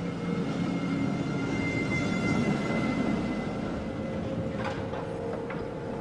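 A train running on rails: a steady rumble with thin, steady high-pitched tones over it.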